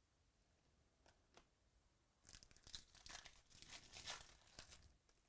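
Faint crinkling and tearing of a foil trading-card pack wrapper being ripped open and handled. It starts about two seconds in and lasts about three seconds, after a couple of light ticks.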